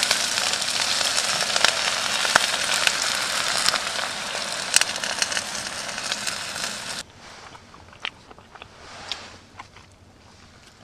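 Onions and shrimp sizzling in a pot on a camp stove, a dense crackle with many sharp pops. About seven seconds in it cuts off abruptly to a much quieter background with scattered faint clicks and crackles.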